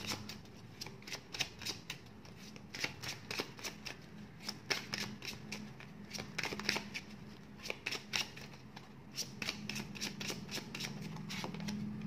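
A tarot deck shuffled by hand before a card is drawn: a run of irregular soft clicks and flicks as the cards slip against each other.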